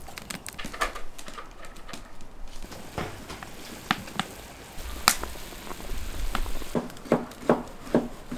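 Wood fire crackling in the stove under a large iron wok of water, with scattered sharp pops and a quicker run of clicks near the end.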